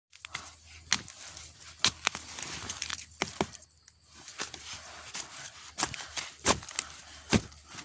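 Footsteps and rustling through dry leaf litter and brush, with irregular sharp snaps and crackles of twigs and stems.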